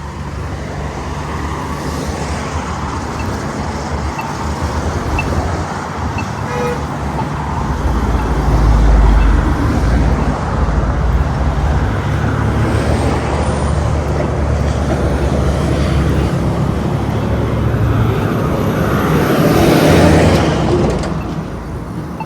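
Road traffic passing through an intersection, a steady rush of cars with heavier vehicles rumbling by; loudest about nine seconds in and again near the end.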